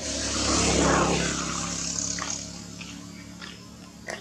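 A motor vehicle passing by, swelling to its loudest about a second in and then fading away. A few short chirps and a sharp click follow near the end.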